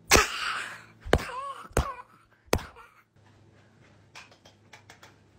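Phone being handled and set down on a hard surface: a rubbing rustle, then three sharp knocks, followed by faint light taps.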